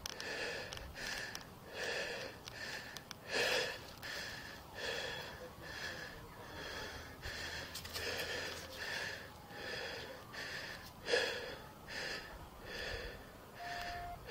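Rapid, heavy breathing close to a body-worn camera's microphone, about two breaths a second, with louder breaths about a quarter of the way in and again near three-quarters.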